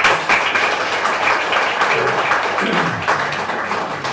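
Audience applauding, a dense patter of many hands clapping that starts suddenly.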